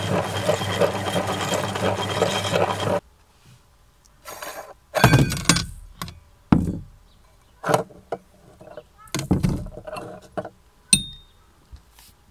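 Meat grinder churning cookies into crumbs, a steady grinding crunch with a regular pulse that stops abruptly about three seconds in. Then come scattered metal clinks and thunks and the rustle of crumbs as the grinder's ring and cutting plate are taken off.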